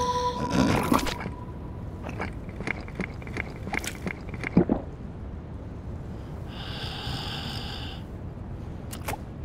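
Cartoon seal snoring and snorting in its sleep: a snort about half a second in, a sharper one about four and a half seconds in, and a hissing breath near the end.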